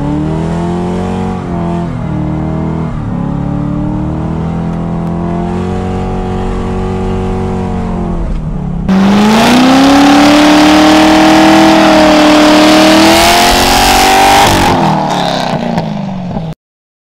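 Car engine revving hard during a burnout, its pitch rising and falling. About nine seconds in it jumps much louder: engine and the hiss of spinning tyres together, the engine note climbing. It cuts off abruptly near the end.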